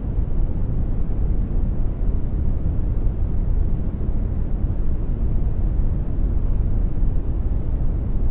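Generated brown noise: a steady, even rumble-like hiss weighted heavily toward the low end, with no events or changes.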